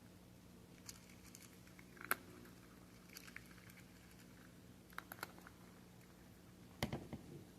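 Cats crunching dry chicken kibble: scattered sharp crunches a second or more apart, with a quick cluster near the end, over a faint steady hum.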